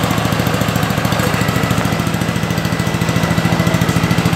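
Honda HRJ 216 walk-behind lawn mower's single-cylinder four-stroke engine running steadily, with an even, rapid pulsing.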